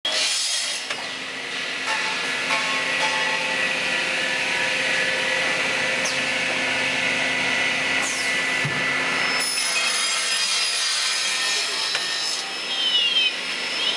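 Automatic aluminum cutting machine running, its circular saw making a steady, dense sawing noise. The sound turns brighter and hissier about nine and a half seconds in and shifts again near the end, where there are a few short squeals.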